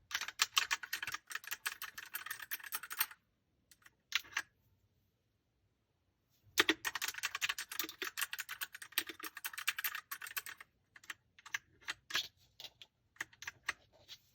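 Leaven H68 mechanical keyboard being typed on: a fast run of keystrokes for about three seconds, and after a pause of about two seconds a second fast run of about four seconds. Slower, separate single key presses follow near the end.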